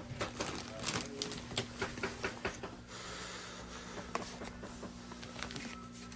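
Crinkling and rustling of a plastic bag of shredded cheese as cheese is sprinkled onto a taco, with dense clicks and crackles in the first few seconds, then sparser taps as paper plates and a knife are handled. A low steady hum runs underneath.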